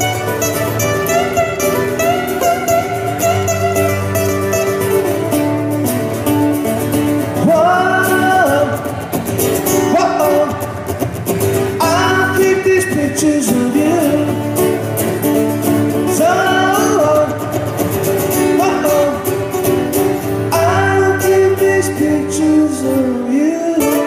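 Live acoustic guitar music in an instrumental break: steady strummed chords under a lead melody whose notes bend up and down.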